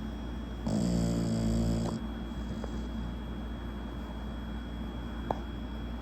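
American bully dog snoring: one long, slightly falling snore lasting just over a second, over a steady low hum, with a single small click near the end.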